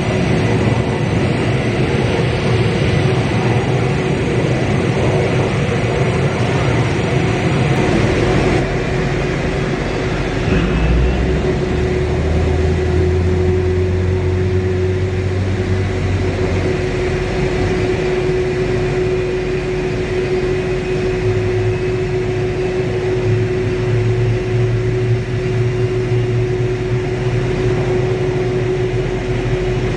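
Steady turbine whine and rumble from a stationary Ilyushin Il-76TD-90VD cargo jet, with one constant tone over a continuous rushing noise. A deeper rumble swells for a few seconds about eleven seconds in and comes back near the end.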